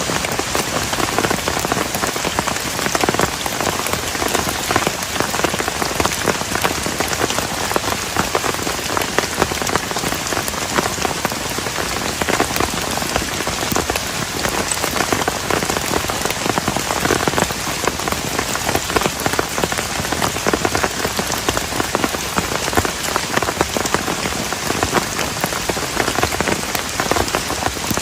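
Heavy rain falling steadily on a plastic tarp: a dense, unbroken hiss of countless drop impacts.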